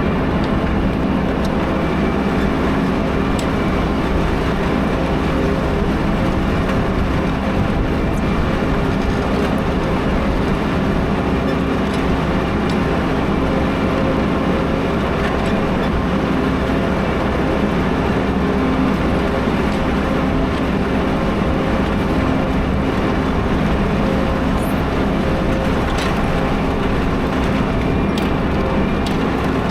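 Tractor engine running steadily under load while pulling a plough through the ground.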